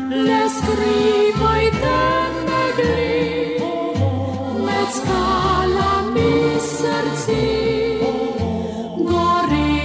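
Music: a choir singing sustained notes over instrumental accompaniment with a moving bass line.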